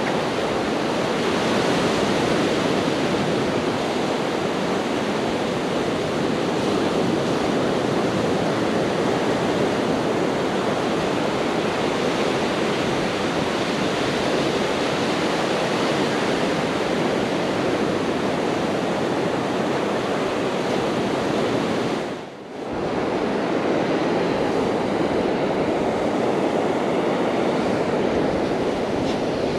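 Steady rush of ocean surf breaking on a beach, with wind on the microphone. The sound drops away briefly once, about two-thirds of the way through.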